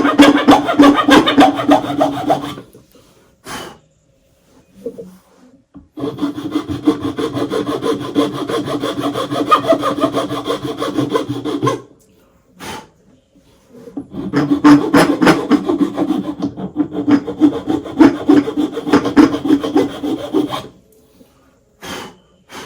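Hand file rasping across a wooden handguard in quick back-and-forth strokes, in three bouts of a few seconds each, shaping the wood to fit. Short single knocks fall in the pauses between bouts.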